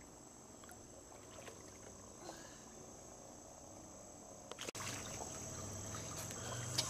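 A steady high-pitched insect chorus, with faint small water sounds. About two-thirds of the way through there is a sharp click, then everything is louder and a low hum joins in.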